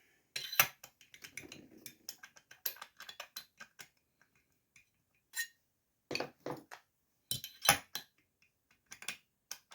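Hand tools and small metal parts clinking and knocking irregularly on a workbench during a chainsaw teardown. There is one sharp knock about half a second in and a louder cluster of clinks near the end.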